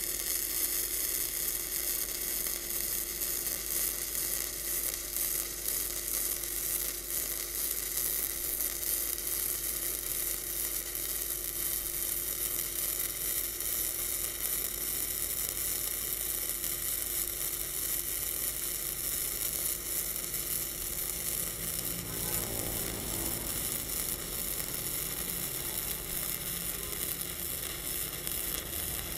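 MIG welding arc from a Lucky Star MIG 285L inverter welder laying a continuous bead on steel, a steady crackling sizzle from the wire feeding into the weld pool, with a faint steady hum under it. This is a test run of the weld's penetration.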